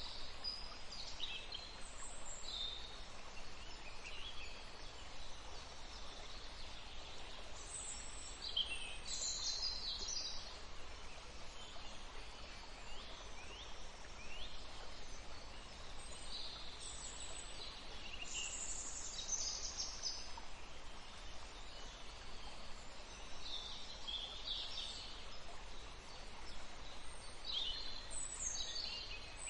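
Several birds singing and calling, short chirps, trills and quick sweeps coming one after another throughout, over a faint steady hiss.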